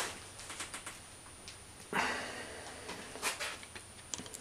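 Faint clicks and handling noise as a wrench and torque angle gauge are worked on the engine's rod and main bearing bolts, with a few short rustling bursts, the clearest about two seconds in.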